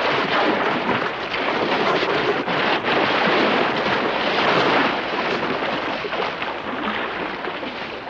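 Heavy splashing and churning water as a great white shark thrashes at the surface, a dense rushing wash that eases off near the end.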